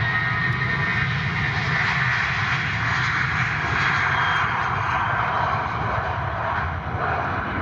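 Airbus A320 airliner's jet engines running at takeoff power as it departs: a loud, steady roar with a strong low rumble.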